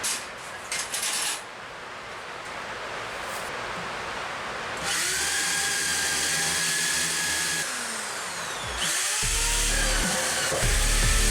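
Power drill running in short trigger pulls, then held in a steady whine: holes being drilled for electrical wiring. A heavy beat of music comes in near the end.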